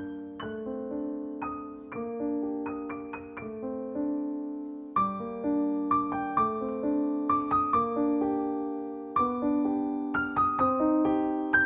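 Background piano music: a gentle melody of single struck notes over held chords, getting busier near the end.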